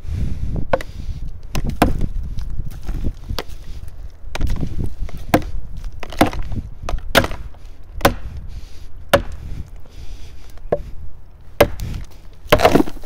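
Plastic felling wedge being struck repeatedly into a log's saw cut, about one sharp knock a second, each with a short ring; the loudest knock comes near the end. The wedge is being driven to free a chainsaw bar pinched in the log.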